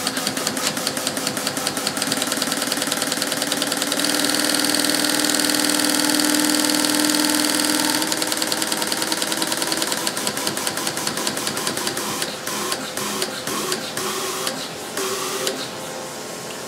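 GM 4.8/5.3 truck fuel injectors on a flow bench, pulsed by an old mechanical relay, clicking in a rapid, even rhythm as they spray fuel, over a steady hum. About twelve seconds in the clicking turns sparse, and it stops about a second before the end as the timed test run finishes.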